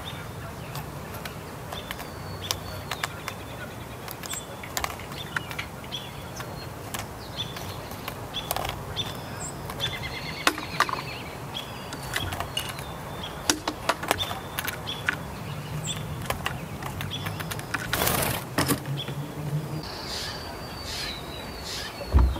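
Steller's jay pecking through a steel bowl of peanuts in the shell: many sharp, irregular clicks and knocks of shells against each other and the metal bowl. A brief rush of noise comes about eighteen seconds in.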